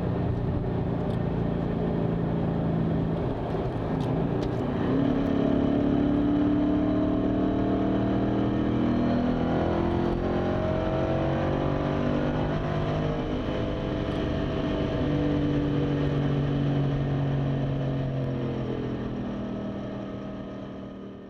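Ford Mustang Boss 302's 5.0-litre V8 running through its side exhaust pipes while the car drives, the engine note rising and falling gently, fading out near the end.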